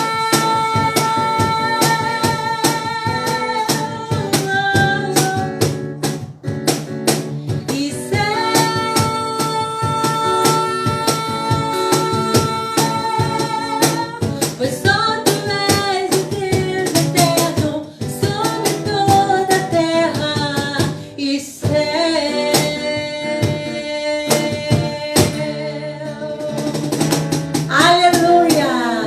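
Live worship music: instruments play long held, sliding melodic notes over drums and percussion.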